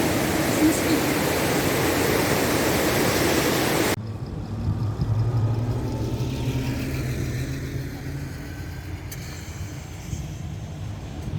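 A steady rushing noise that cuts off abruptly about four seconds in, followed by a low, steady motor-vehicle hum with faint gliding tones above it.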